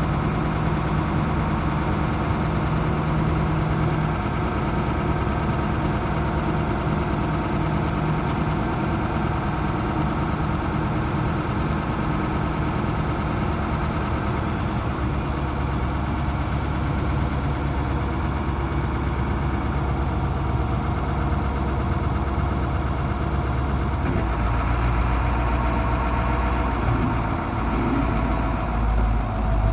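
Diesel engine of a 1995 International dump truck idling steadily while the dump bed is raised and tilted. The deep rumble grows louder near the end.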